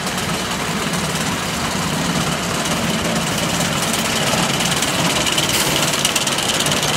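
Roller coaster lift-hill chain and drive running: a steady mechanical hum with a fast, continuous rattle of clicks.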